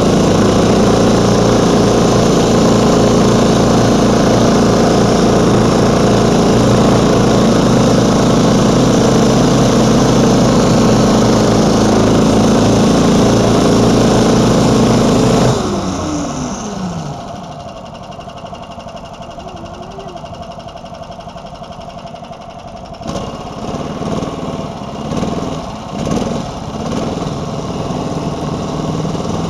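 Small engine of a homemade single-ski snowmobile running steadily at high revs under way. About halfway through the engine speed drops to a quieter, lower run. It then gets a few short blips of throttle and picks up again near the end.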